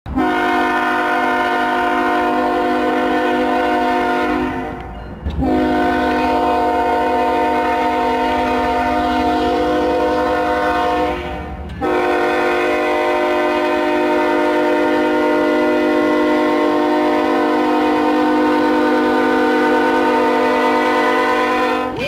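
Hockey goal horn blowing three long, steady blasts: the first about four seconds, the second about six, the third about ten.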